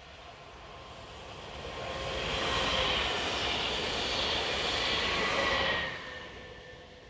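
Electric multiple-unit passenger train passing close by. A rush of wheels on rail with a steady whine on top builds up, is loudest from about two and a half to nearly six seconds in, then drops off quickly as the train goes past, leaving the whine fading away.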